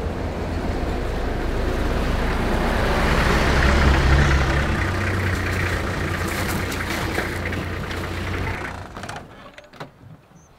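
A 4x4 safari vehicle's engine running as it drives along a dirt track, swelling to its loudest about four seconds in. The sound falls away suddenly near nine seconds in.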